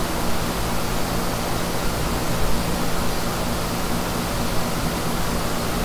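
Steady hiss with a low hum under it: constant background noise, with no distinct event standing out.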